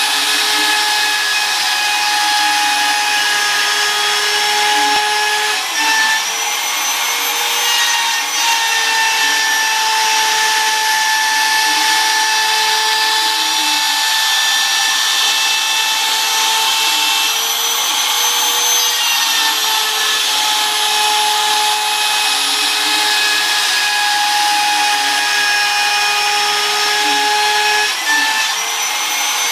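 A Shapeoko CNC router's spindle running at a steady high whine while its bit surfaces an MDF spoil board, with a hissing cutting noise under the tone. A few times the pitch shifts briefly and the level dips for a moment.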